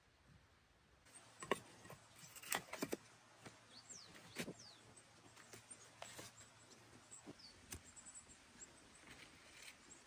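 Split firewood and pieces of bark knocking together as they are stacked by hand into a small pile: irregular light wooden knocks and clacks beginning about a second in, a few in quick pairs.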